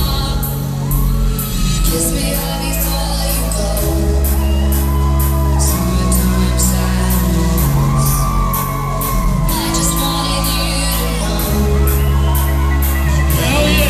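Loud electronic music with a heavy bass line that changes every couple of seconds and a steady beat, with a voice singing or shouting over it.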